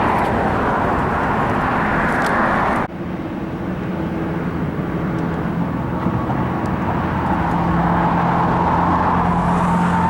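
Car driving: steady road and engine noise with a low hum, dropping abruptly a little under three seconds in and then building back up.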